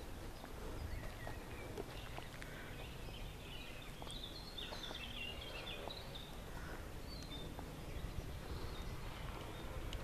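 Small songbirds chirping and singing in short phrases, busiest around the middle, over a steady low rumble.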